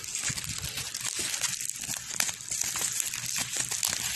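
Clear plastic packaging crinkling and rustling with many small crackles as hands handle it and work it off a toy box.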